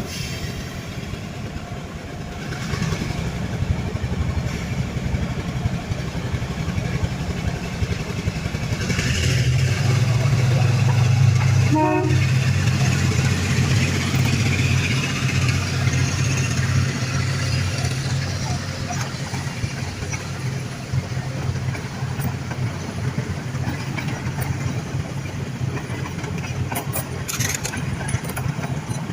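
Diesel train passing, its engine rumble and the running noise of wheels on rails building to a peak about ten seconds in, then easing off as it moves away.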